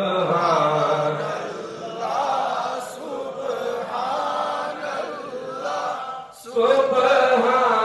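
A man's voice singing a devotional naat in long, drawn-out, wavering notes through a microphone and sound system. There is a brief break about six and a half seconds in before a louder held note.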